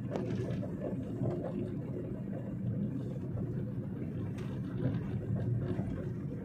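Steady low rumble of a car's engine and tyres on the road, heard from inside the moving car's cabin, with a few faint ticks.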